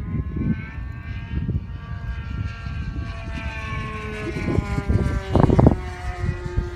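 Super Tigre G90 two-stroke glow engine on a tuned pipe, powering an RC aerobatic plane in flight. Its note rises over the first couple of seconds, then glides slowly down as the plane flies its manoeuvre. Wind buffets the microphone throughout, hardest about five and a half seconds in.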